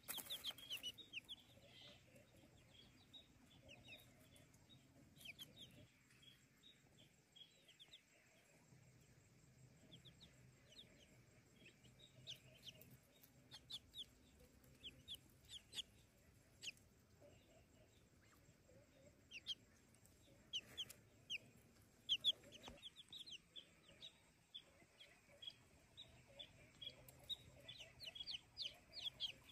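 Newly hatched chicks peeping: many short, high cheeps, scattered and faint, coming in quick flurries near the start and again near the end.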